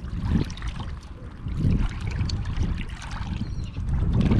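Wind gusting on the microphone in a low rumble that rises and falls, over water sloshing at the shoreline, with scattered small clicks and splashes.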